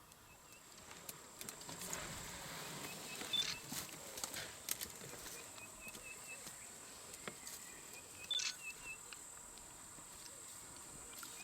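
Faint bush ambience: a bird repeats the same short phrase three times, about five seconds apart, each a single high note followed by a quick run of lower chirps. Scattered sharp clicks and a steady high-pitched hum run beneath.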